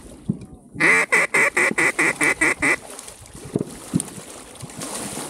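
A duck call blown close by in a quick, loud run of about nine quacks, calling to ducks flying near the blind.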